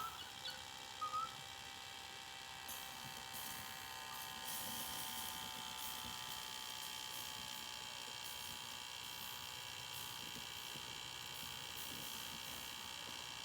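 Faint steady electric hum made of several even tones, with a couple of short chirps about a second in.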